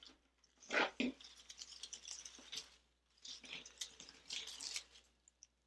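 Artificial leaves and berry stems rustling in irregular bursts as they are worked into a grapevine wreath, loudest about a second in.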